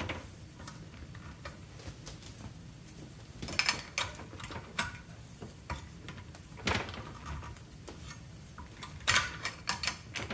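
Plastic clicks, knocks and rubbing as the reverse osmosis membrane housing is handled and its cap twisted loose by hand. There are scattered sharp clicks: a cluster about three and a half seconds in, one near seven seconds, and a few more near the end.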